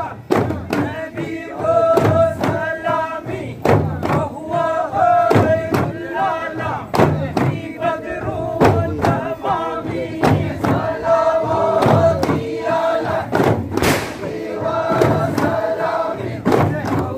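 Men's group chanting a dhikr in unison, with sharp strokes on daff frame drums cutting through the singing every second or so.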